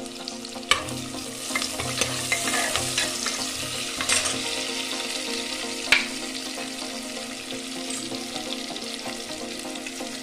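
Chopped onion sizzling in hot oil in an aluminium pressure cooker as it fries toward golden brown. A ladle stirs it, knocking sharply against the pot a few times.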